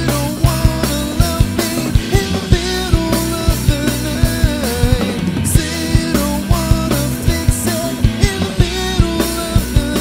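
Rock band playing live: a drum kit keeping a steady beat under electric bass and electric guitar, with a pitched melody line bending over the top.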